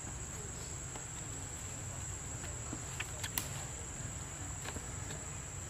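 Steady high-pitched drone of insects, crickets or cicadas, over a low rumble, with a few light clicks about three seconds in.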